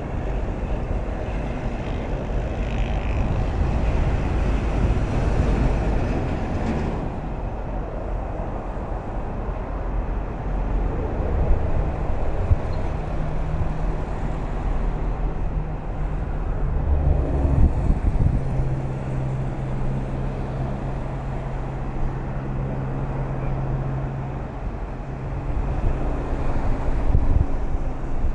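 Toll-road traffic: a continuous low rumble of vehicle engines and tyres. About halfway through, a steady low engine drone comes in and holds.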